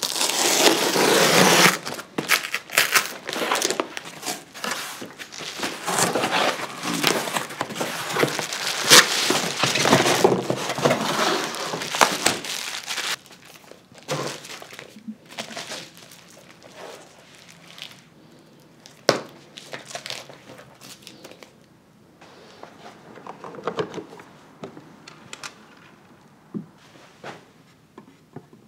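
Cardboard and bubble-wrap packaging crinkling and rustling as a vinyl LP is unwrapped. It is loud and dense for about the first thirteen seconds, then drops to quieter scattered rustling with a few light clicks of handling.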